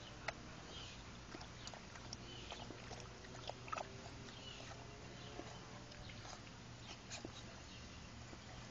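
Faint sounds of Rottweiler puppies at a plastic water tub: short high whimpers now and then, with scattered light clicks and taps.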